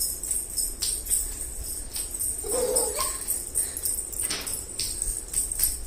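Steady jingling of small bells, with a brief vocal sound about two and a half seconds in.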